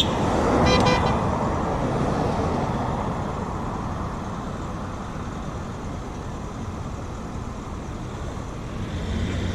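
Road traffic passing close by: a car horn toots briefly about a second in, then the tyre and engine noise dies down. Near the end a low engine rumble rises as another vehicle approaches.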